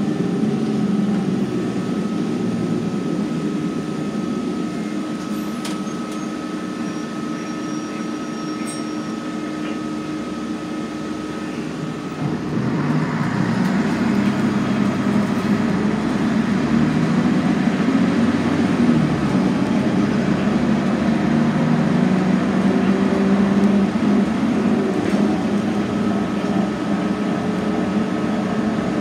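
Scania N113CRB city bus heard from inside the passenger cabin while driving: the diesel engine and drivetrain running steadily with road noise, and a thin steady whine over the first half. About twelve seconds in, the engine and road noise get louder and stay up.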